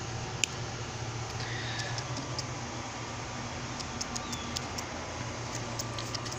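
A single sharp snip of small bonsai clippers cutting through a Chinese elm branch about half a second in, followed by scattered light clicks over a steady low hum.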